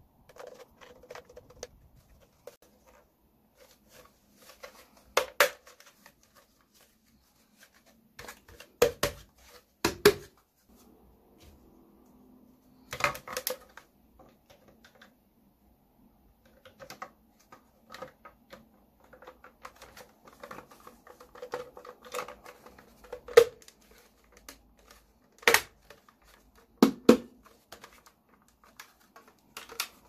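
Hard plastic parts of a Dyson V6 cordless vacuum being handled and fitted together: irregular clicks, knocks and light rattles, with several sharper snaps as pieces seat.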